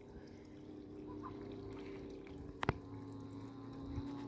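Faint water sounds of fish feeding at bread floating on a pond's surface, with one sharp surface smack about two and a half seconds in, over a steady low hum.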